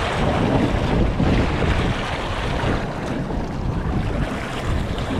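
Wind buffeting the microphone on an open boat at sea, a steady, gusty rumble with the wash of the ocean under it.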